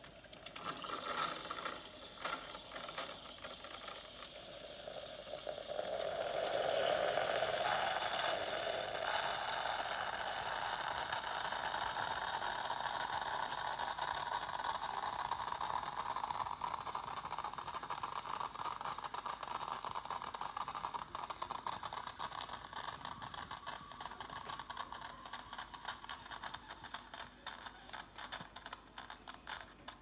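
Bosch Tassimo pod coffee machine brewing: its pump runs with a buzzing rattle as it forces hot water through the coffee T-disc into the cup. The noise comes on in the first second, is loudest a few seconds in, and gradually eases off toward the end as the brew finishes.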